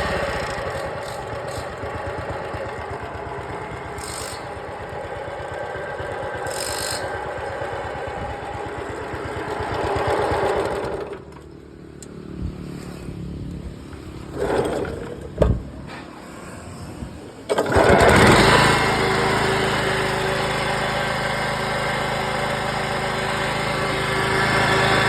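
Small engine of a walk-behind concrete cutter running steadily, dropping away about eleven seconds in to a quieter stretch with a few knocks, then starting up again about six seconds later and running steadily.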